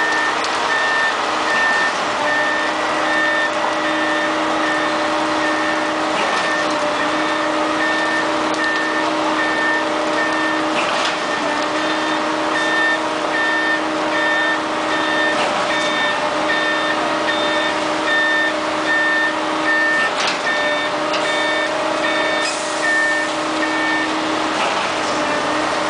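Reversing alarm of a concrete mixer truck beeping about twice a second as the truck backs up, over the steady running of its diesel engine.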